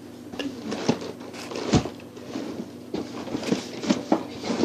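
Knocks and clicks of small makeup containers being rummaged through and handled in the search for a concealer, with one louder knock a little under two seconds in.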